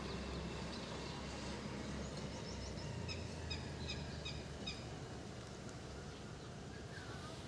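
A bird giving a quick run of faint, short, high chirps a few seconds in, over a steady low hum.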